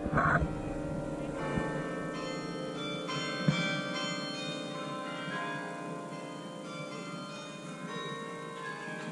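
Bok Tower's carillon playing: many tuned bronze bells are struck in turn as a melody, and their tones ring on and overlap. The strikes are loudest just after the start and again about three and a half seconds in.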